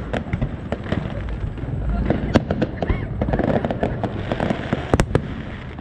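Aerial fireworks display: a rapid run of shell bursts and crackling pops, with sharper single bangs a little past two seconds and about five seconds in.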